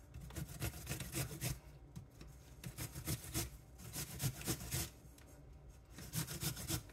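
An apple being grated by hand on a flat stainless-steel grater: quick repeated rasping strokes of the fruit across the metal, with a brief pause about five seconds in.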